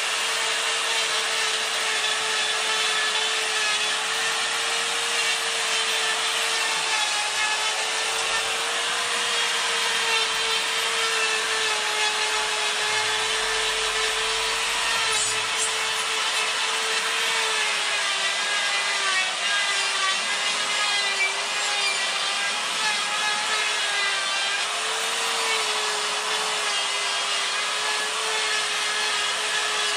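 Electric die grinder with a coarse Saburrtooth carbide burr grinding into maple, running continuously. Its motor whine holds steady and wavers slightly in pitch as the burr bites and eases off the wood.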